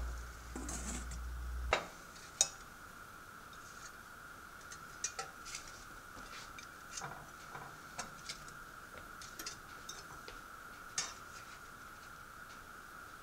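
A stainless lid is set on a hot cast iron skillet with a short hiss. Then come light, scattered clinks and scrapes of a metal spatula against a glass dish and a ceramic plate as hash patties are lifted out, over a faint steady high hum.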